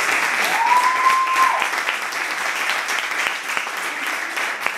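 Audience applauding steadily, many hands clapping together, greeting a performer's bow. One long high note rises, holds and falls over the clapping about half a second in.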